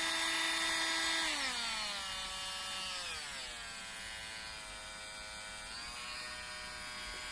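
Workshop mini grinder's small electric motor running with a whine that drops in pitch in two steps as its speed dial is turned down, then rises slightly near the end.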